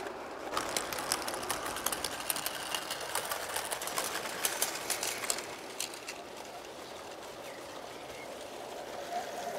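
O gauge model goods wagons running along garden track, their wheels clicking and clattering irregularly over the rail joints. After about five seconds the clicking dies away to a quieter, steady running sound.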